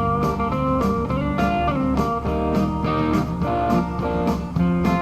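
Country-rock instrumental break: a lead guitar solo with notes that slide and bend, over a steady drum beat and bass.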